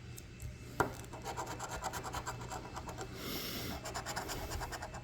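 A coin scraping the coating off a scratch-off lottery ticket in rapid repeated strokes, after a single sharp tap about a second in.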